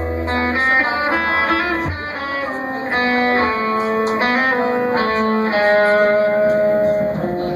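Electric guitar played live on stage, picking a melody note after note.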